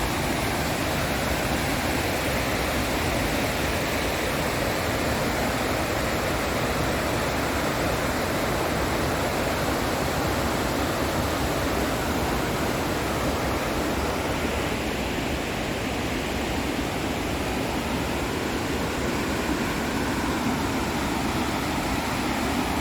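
Steady rushing of a waterfall and the river below it, an even roar of water.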